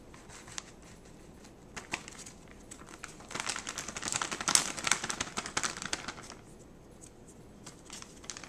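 Plastic bag of shredded cheese crinkling as cheese is shaken and sprinkled out of it by hand, a few short crackles at first, then a dense burst of rustling from about three to six seconds in.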